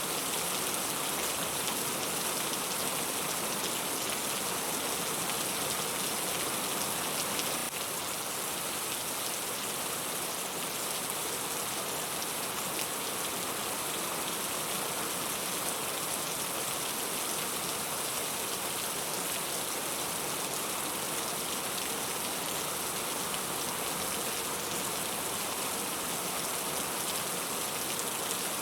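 Steady rain falling, an even hiss of drops that eases slightly about eight seconds in.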